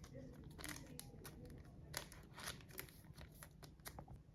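Faint handling of trading cards and booster-pack packaging: scattered soft clicks, rustles and crinkles.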